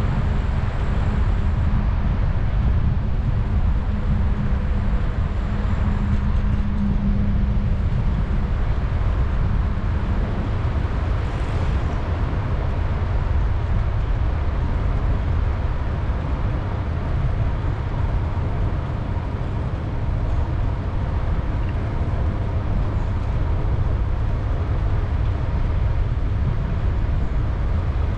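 Steady low wind rumble buffeting an action camera's microphone during a bicycle ride, with a faint hum through the first several seconds.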